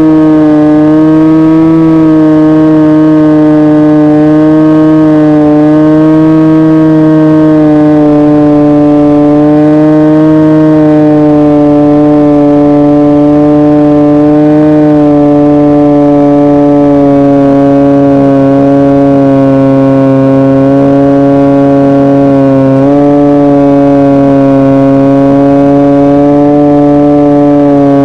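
Motor and propeller of a fixed-wing RC glider drone running steadily, heard from the onboard camera: a loud, continuous buzzing hum whose pitch wavers slightly and drifts a little lower.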